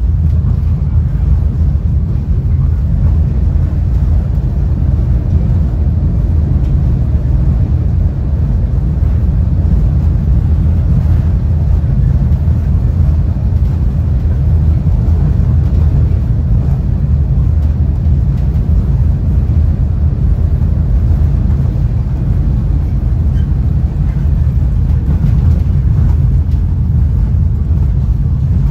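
Steady low rumble inside a Caltrain Gallery bilevel passenger car travelling at speed, from the wheels and running gear on the rails.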